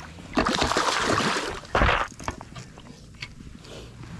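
A hooked redfish thrashing and splashing at the water's surface as it is brought to hand, in one longer burst of splashing about half a second in and a second short, sharp splash about two seconds in. Small water sounds follow.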